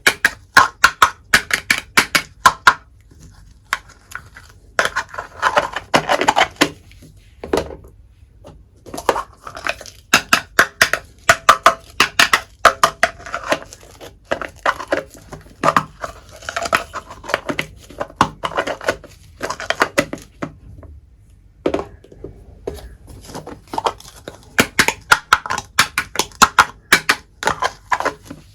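Miniature toy kitchenware being handled: rapid clicks, taps and clinks of tiny pots, pans and utensils knocking together, some with a brief ringing tone, in quick runs broken by short pauses.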